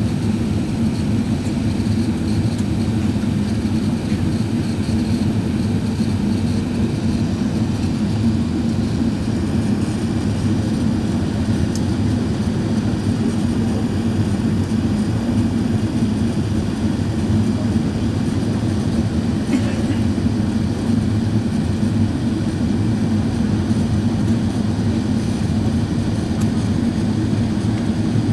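Steady drone of an Airbus A380 cabin in flight on descent, engine and airflow noise heard from a window seat, deep and unchanging.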